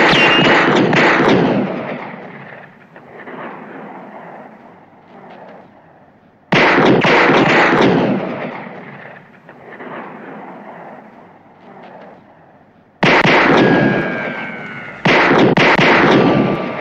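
Bren 10 semi-automatic pistol fired in rapid strings of shots: four volleys, one at the start, one about a third of the way in and two close together near the end. Each volley rings out in a long echoing tail.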